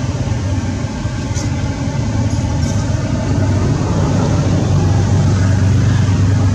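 An engine running steadily: a loud low hum under an even hiss, with no change in pitch or level.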